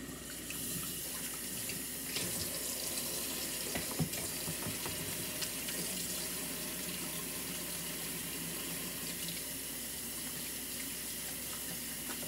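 Kitchen faucet running steadily into the sink while hands are washed under the stream, with a few light knocks.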